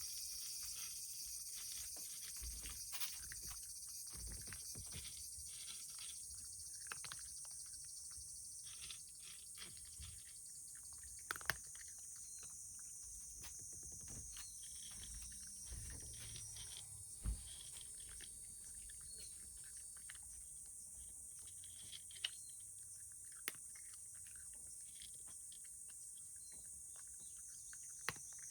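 A cat eating from a dish: faint, irregular small clicks of chewing and licking, with a few louder knocks, over a steady high hiss.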